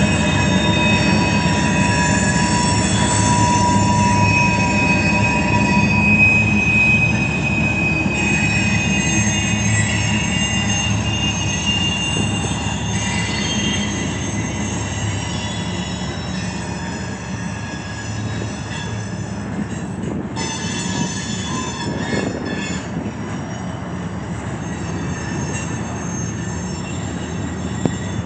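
Loaded steel-train freight cars rolling past on the curve of a wye, their wheels squealing in several shifting high tones over a steady rumble. The sound eases gradually as the train moves on.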